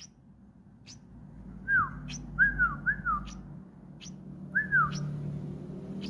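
Small bird calling: short, very high chirps about once a second, with several louder whistled notes that arch up and fall away. Four of the whistled notes come in a quick run, and one more follows a little later.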